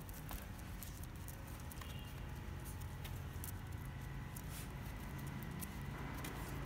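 An adult dog and a puppy play-wrestling, their paws and claws scuffling and clicking lightly on paving stones, over a low steady hum.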